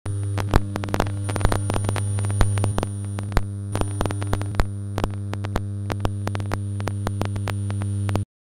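Electronic sound-art music: a steady low electronic drone with a thin high whine above it, peppered with irregular clicks and crackles. It cuts off abruptly near the end.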